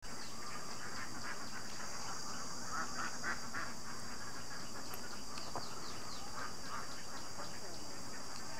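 Ducks quacking in short repeated bunches over a steady high hiss.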